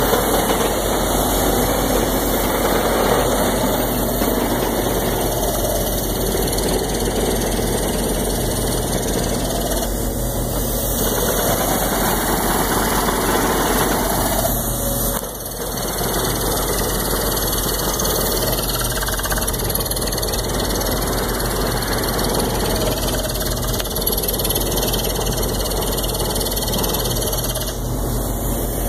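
Steady, loud din of heavy diesel drilling machinery: a Ditch Witch JT60 horizontal directional drill rig running during a hard-rock bore, with its air-driven down-hole hammer setup. The noise holds even, dipping briefly about halfway through.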